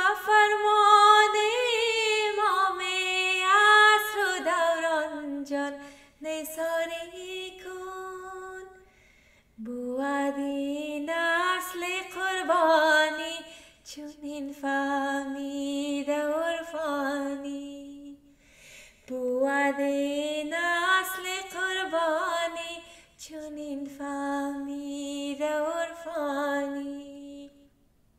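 A woman singing a qasida, an Ismaili devotional song, solo and unaccompanied. She sings long, ornamented phrases with short pauses between them.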